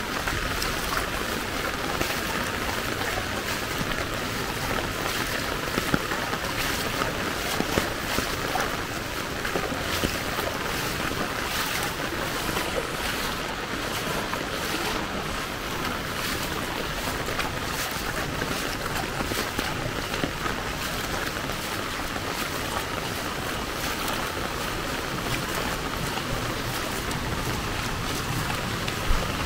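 Heavy rain falling steadily as an even hiss, with a few sharper drop impacts standing out now and then.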